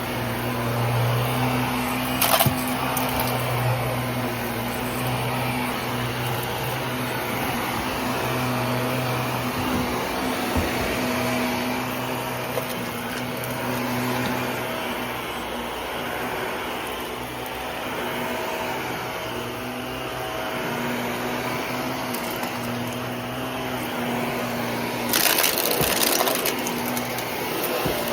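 Vacuum cleaner running steadily, its motor hum wavering slightly under the rush of airflow. There is a short click a couple of seconds in and a louder burst of rattling suction near the end.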